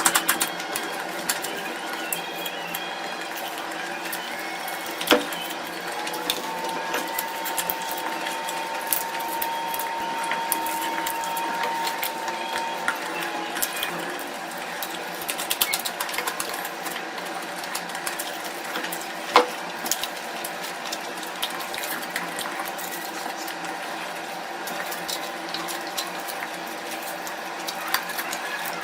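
Close-miked eating sounds: chewing, with many small mouth ticks and a few sharp clicks, over a steady mechanical hum.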